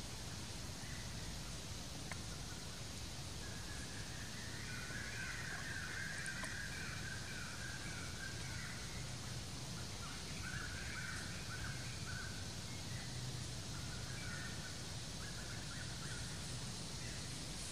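Faint chattering animal calls, clustered from about four seconds in until about fifteen, over a steady outdoor hiss.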